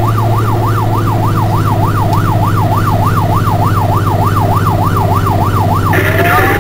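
Fire engine's electronic siren sounding a fast yelp, rising and falling about three times a second, then switching to a slow rising wail about six seconds in, heard from inside the cab over the truck's steady engine drone.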